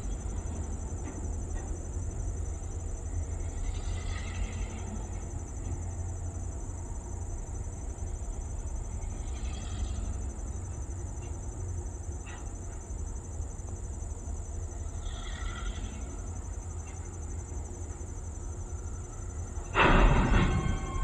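Low, steady rumble of a distant EMD GP9R diesel locomotive creeping along at low throttle, under the steady high chirring of crickets. Near the end comes a sudden, louder burst of noise with a ringing tone.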